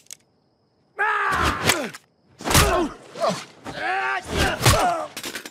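A man groaning and yelling in three strained bursts, starting about a second in, with dull thuds among them.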